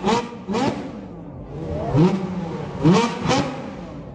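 Ferrari V8 supercar engine revved in short, sharp blips, about five in four seconds, each rising quickly in pitch and dropping back.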